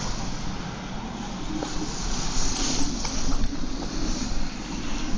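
Strong gusting wind, 60-plus mph, blowing over and around a car: a dense rushing noise with a low rumble beneath, swelling and easing with the gusts.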